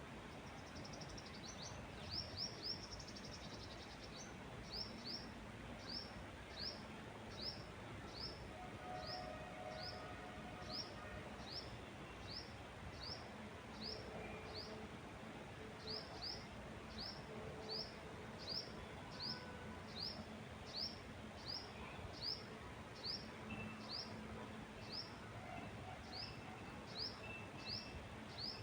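A bird repeating a short, high, upswept chirp a little more than once a second, quicker for a moment at the start, over a faint steady hiss of wind in the trees.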